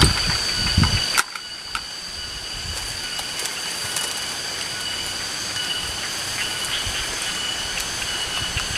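Steady high-pitched drone of forest insects over a hiss, with a few low knocks in the first second. About a second in, the sound drops suddenly, as at a cut, and the drone carries on steadily.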